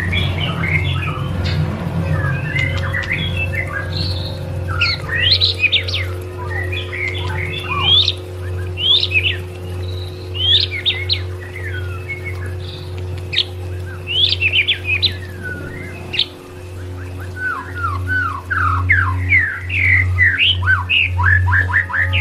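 White-rumped shama (murai batu) singing: quick runs of sharp, sliding whistled notes, denser near the end. Underneath is a steady low musical drone.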